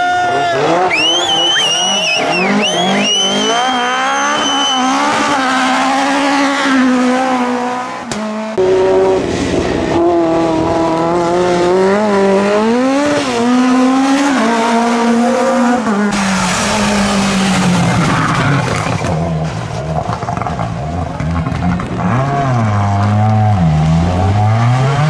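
Rally cars driven hard on a wet tarmac stage, one after another. Their engines rev up and fall away through gear changes and lifts off the throttle. A high, thin, wavering whine sounds over the engine for the first few seconds.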